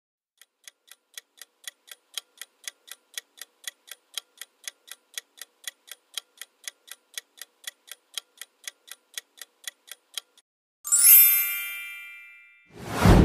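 Quiz countdown-timer sound effect ticking evenly, about four ticks a second for roughly ten seconds. Then a bright chime rings out and fades as the answer is revealed, and near the end a loud whoosh.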